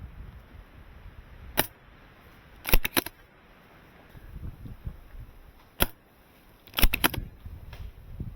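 Airsoft sniper rifle firing twice: each time one sharp crack, then about a second later a quick run of clicks. Wind rumbles on the microphone.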